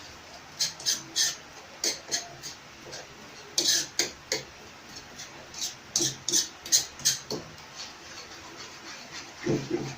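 A utensil scraping and tapping against a pan as thick gravy is stirred, in irregular strokes that stop about seven seconds in.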